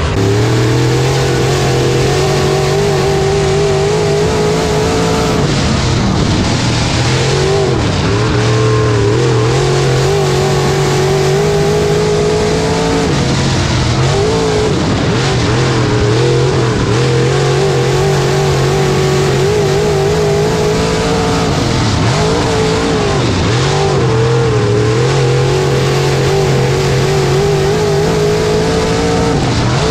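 Dirt-track modified race car's freshly rebuilt Maniac Racing engine at full throttle, heard from inside the car: its pitch holds high on the straights and drops and climbs again each time the driver lifts for a corner, several times over.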